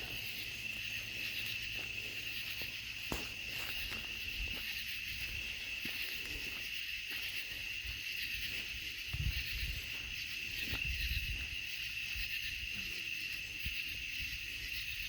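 Steady chorus of night insects, a continuous high trilling. A few low thumps come about nine and eleven seconds in.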